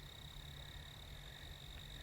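Steady night-time chorus of calling animals: a continuous high-pitched trill, faint, with a low rumble underneath.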